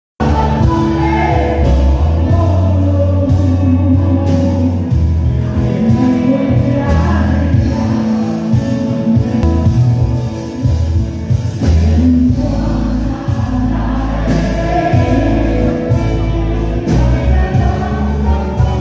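A live band playing through a PA system: a woman singing lead over electric guitars and a drum kit, with a heavy bass line.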